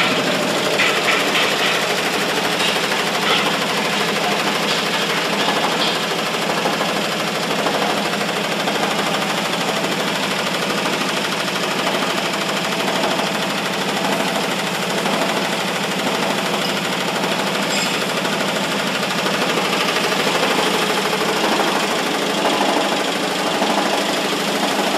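Vibrating screen trial-running with no load: a steady mechanical rattle and hum of the shaking steel frame and wire-mesh deck on its coil springs.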